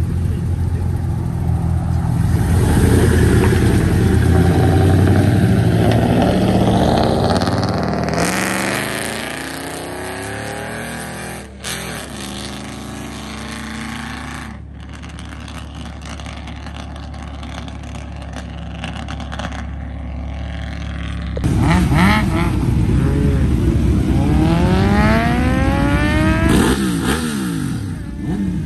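Vehicle engines running loudly, one pulling away with its pitch falling. Then, about two-thirds of the way through, a sport motorcycle's engine is revved hard again and again, its pitch sweeping up and down.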